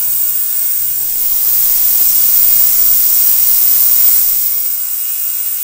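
Digital ultrasonic cleaner running a cleaning cycle on its water-filled tank: a loud, steady hiss over a faint low hum.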